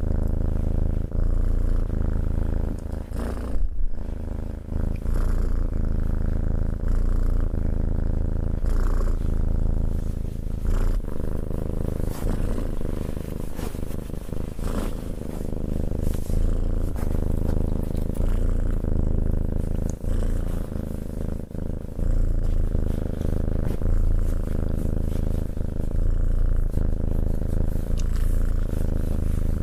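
Tabby cat purring steadily, a low continuous rumble, while being stroked, with faint brushing sounds now and then.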